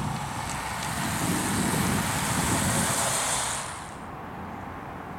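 A bunch of racing road bicycles passing close by, tyres hissing on tarmac. The hiss swells over a couple of seconds, then cuts off abruptly near the end to a quieter outdoor background.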